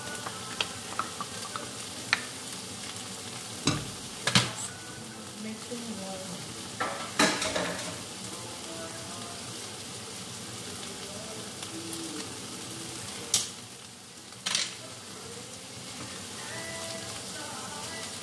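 Chorizo, vegetables and tomato sauce sizzling steadily in a wok while being stirred, with about five sharp knocks of utensils against the pan.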